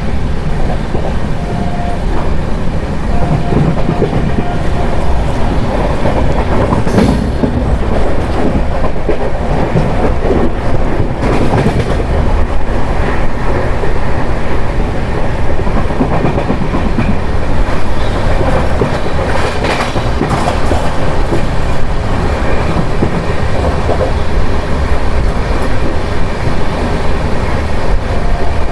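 Jan Shatabdi Express passenger train running at speed: a loud, steady rumble of the coach on the track, with occasional sharp clacks of the wheels over rail joints.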